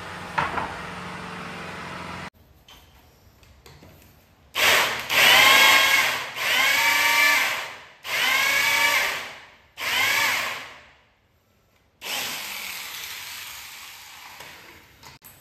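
Electric hand drill boring into a wooden cabinet door panel in four short runs of about a second and a half each, its whine rising as each run starts.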